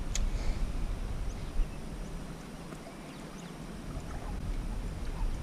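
Wind rumbling on the microphone over lapping water, with one sharp click just after the start.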